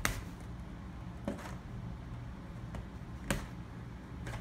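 Cardboard box of craft sticks being pried open by hand: a few sharp clicks and taps of fingernails and the cardboard flap, the loudest at the start and about three seconds in, over a low steady room hum.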